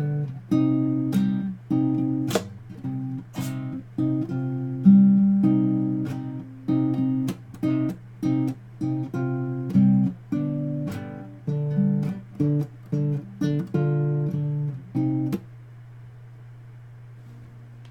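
Guitar strummed in rhythmic chords, many cut short, that stop about three quarters of the way through. A low steady hum remains after the playing stops.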